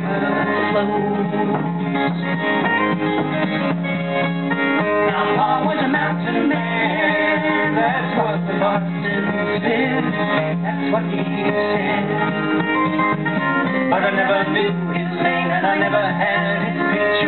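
Two acoustic guitars strummed and picked together in a folk song, with singing over them.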